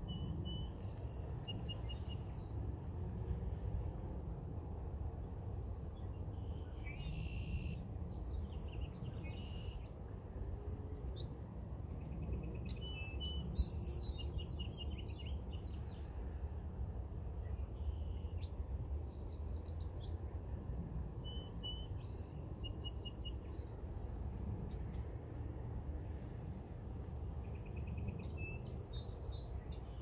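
Songbirds singing short repeated phrases every several seconds, over a steady pulsing chirp of insects, with a low steady rumble underneath.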